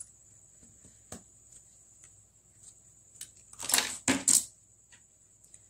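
Small clicks and scrapes of phone parts being handled as a smartphone's motherboard is eased out of its frame, with three louder scraping rustles about four seconds in.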